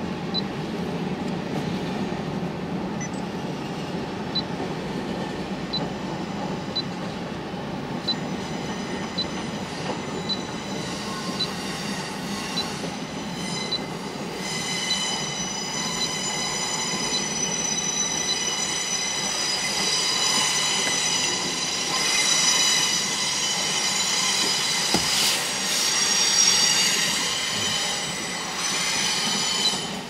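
Freight cars of a CN train rolling slowly past, with steady wheel-on-rail rumble. A high-pitched wheel squeal comes in about a quarter of the way through, builds, and is loudest near the end. Faint regular ticks about once a second come in the first third.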